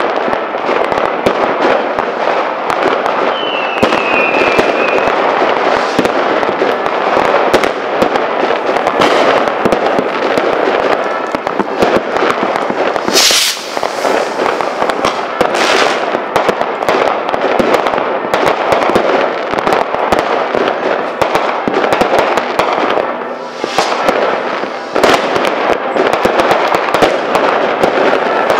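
Fireworks and firecrackers going off without pause, a dense continuous crackle of pops and bangs. A short falling whistle comes about four seconds in, and a loud hissing rush comes about halfway through.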